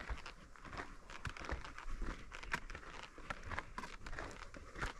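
Footsteps on loose, freshly dug dirt and dry pine needles: an irregular run of small crunches.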